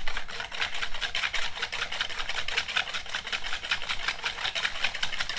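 A fork whisked quickly around a plastic bowl, scraping and clicking against its sides at about eight strokes a second, as granulated sugar is worked into red wine vinegar to dissolve it for a dressing.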